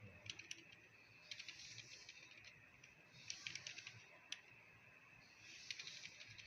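Keys of a new computer keyboard being typed on in short bursts of faint clicks, a few keystrokes at a time with pauses between, as the keyboard is tried out.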